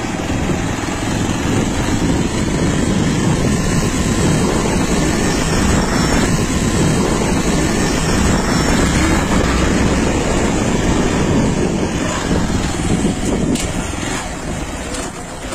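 Steady rush of wind and road noise recorded from a moving two-wheeler, easing slightly near the end with a few faint clicks.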